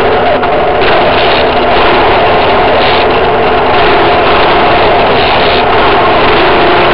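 Trail motorcycle engine running steadily and loudly as the bike rides along.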